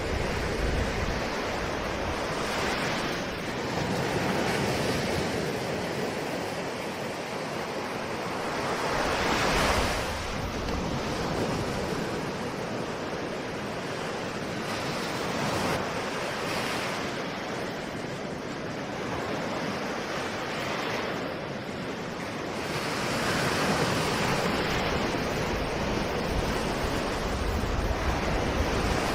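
Ocean waves breaking and washing on a shore, a steady rush of surf that swells every few seconds as each wave comes in.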